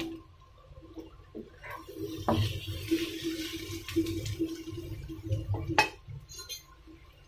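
Prawns frying in hot oil in a non-stick pan, sizzling loudest in the middle, with a few sharp knocks of a wooden spatula against the pan.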